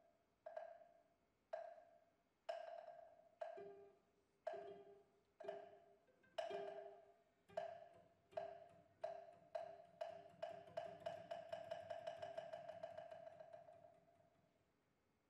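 Quiet struck, ringing percussion notes, about one a second at first, quickening into a fast roll that fades away. A second, lower note joins about three and a half seconds in.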